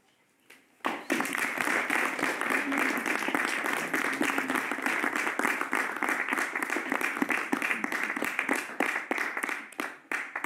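Audience applause that breaks out about a second in, dense and steady, then thins to a few scattered claps near the end.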